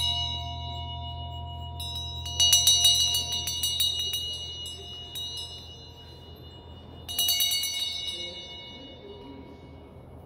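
Two bronze hand bells, one large and one small, shaken so the clappers strike rapidly in three bursts: at the start, about two seconds in and about seven seconds in. Each burst leaves a ringing that fades away. A steady low hum runs underneath.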